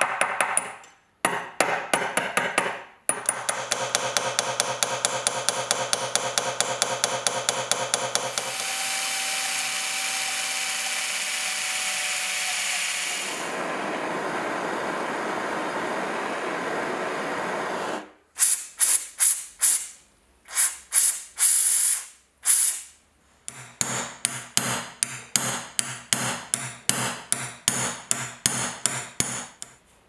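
Rapid light hammer taps on a tool held against a rusty iron buckle pin clamped in a steel bench vise, several taps a second, with a steady hiss lasting about ten seconds in the middle before the tapping resumes in short runs.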